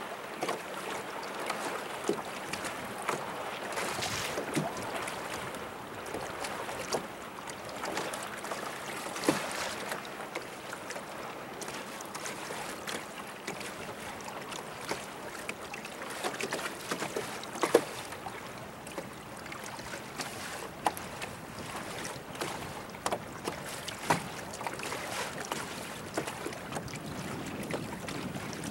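Choppy lake water lapping and slapping against a small boat's hull, with irregular sharp splashes over a steady rush of water and wind.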